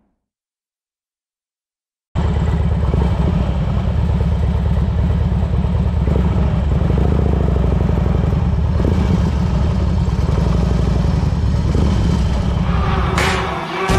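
A motorcycle engine running steadily, loud and low-pitched with an even pulse. It cuts in suddenly after about two seconds of silence. Near the end, music with singing comes in over it.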